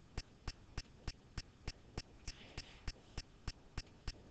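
Faint, evenly spaced clicking, about three clicks a second, steady in rhythm.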